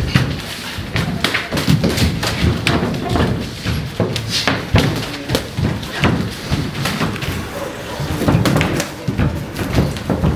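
Kickboxing sparring: boxing gloves landing on gloves and arms in irregular thuds, a few a second.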